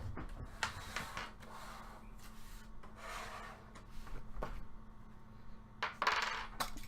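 Packaging of sealed trading card boxes being handled and opened: several short bursts of rustling and rubbing, with a few light taps.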